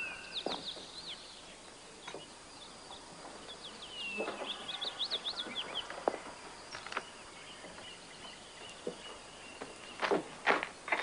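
Birds chirping in two short spells of quick sweeping notes, over scattered footsteps. Near the end comes a run of sharper, louder steps from high heels.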